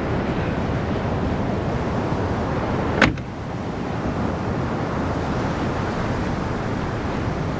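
Steady rushing noise with no distinct tones, broken by a single sharp click about three seconds in, after which it is briefly quieter.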